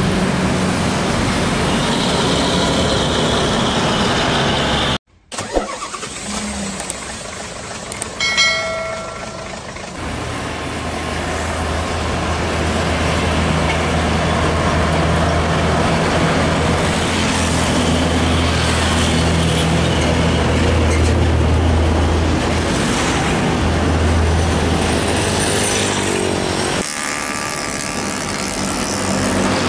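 Roadside traffic as heavy diesel trucks pass: a steady low engine hum with tyre and road noise. A short high-pitched tone sounds about eight seconds in.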